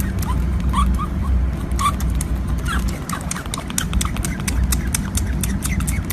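Short, high, rising animal squeaks, several in the first few seconds, over many sharp clicks and a steady low rumble.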